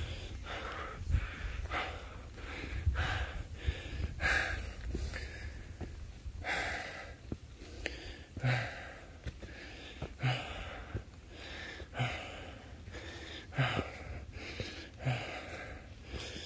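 A hiker's heavy, rhythmic breathing, about one breath a second, while he climbs steep trail steps: he is out of breath from the exertion.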